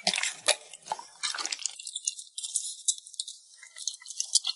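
Fake-water slime squeezed and kneaded by hand, giving a run of wet clicks, pops and crackles from bursting air bubbles.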